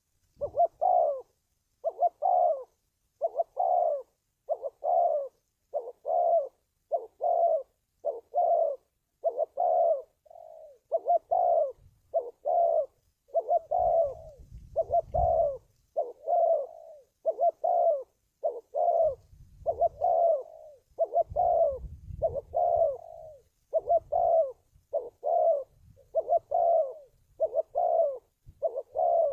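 Spotted dove cooing in a long, even series of calls, a bit under one a second. A low rumble runs under the calls twice in the middle.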